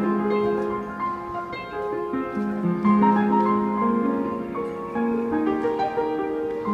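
Upright piano being played: a melody over held low notes.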